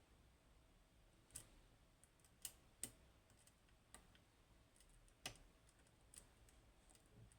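Faint, irregular small clicks of a lock pick working the pins of a Goal Z seven-pin pin tumbler lock during picking.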